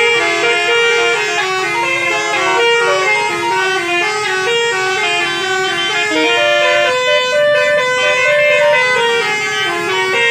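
Basuri musical bus horn playing a tune: a loud, continuous run of horn notes stepping up and down in pitch several times a second.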